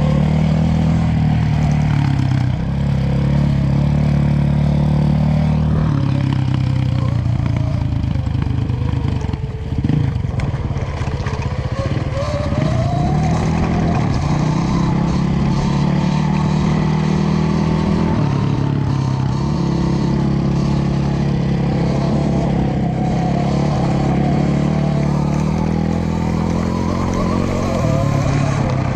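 Eride Pro SS electric dirt bike being ridden offroad: the motor's whine rises and falls with speed over a steady rush of wind and tyre noise.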